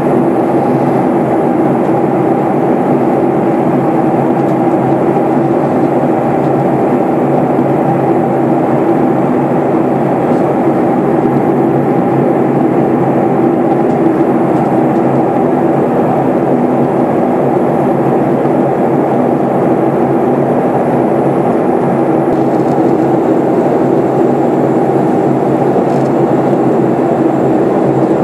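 Steady cabin noise inside a Boeing 737-800 during its descent: the even drone of its CFM56-7B jet engines and the air rushing past the fuselage, with no change in pitch or level.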